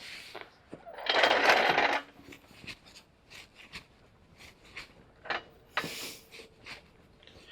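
Tools and metal parts being handled while working on an ATV axle: scattered light clinks and clicks, with a noisy burst lasting about a second near the start and a shorter one about six seconds in.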